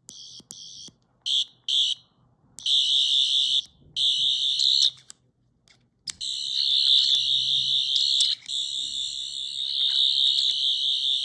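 Sonic screwdriver replica's electronic sound effect: a high, warbling whine that comes in several short bursts, then is held from about halfway through.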